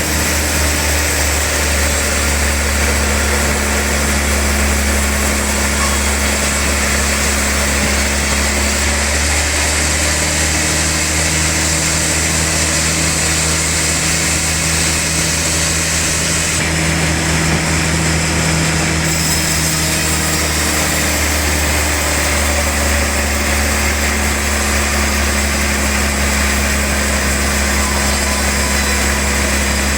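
Large sawmill saw machinery running steadily with a strong low hum. A few of its tones shift in pitch about a third of the way in and again about two-thirds of the way in.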